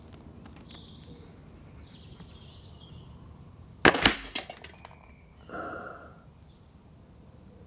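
Remington Express .22 break-barrel air rifle firing one shot about four seconds in: a sharp crack followed by a brief rattle.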